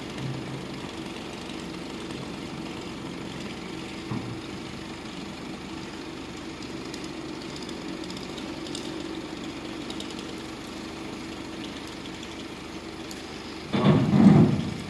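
Hook-lift truck engine running steadily while its roll-off container is shifted. Near the end comes a short, louder burst of noise.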